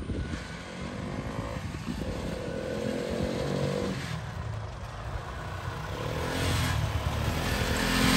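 A motor vehicle engine running, growing louder toward the end.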